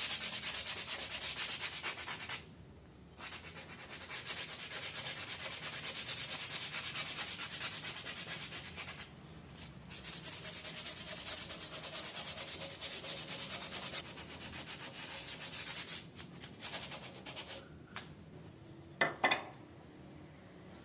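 Bushcraft saw cutting through wood, rasping strokes in three long runs with short pauses between them. Two short knocks come near the end.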